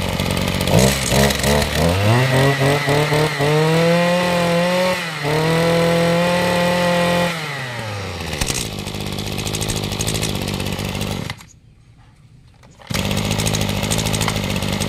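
Small two-stroke brush cutter engine being revved. The throttle is opened and the pitch climbs over a few seconds, holds high briefly, then drops back to a steady idle. About eleven seconds in it goes quiet for a second and a half, then idles again.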